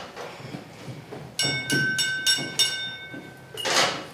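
A glass tapped five times in quick succession, about three taps a second, each tap ringing with a clear bell-like tone: the call for attention before a toast. A short rushing noise follows near the end.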